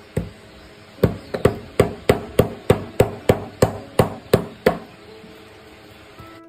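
A run of hard knocks at an even pace of about three a second, each with a short ring, stopping after about four seconds: repeated strikes, as in chopping or pounding during the pickle preparation.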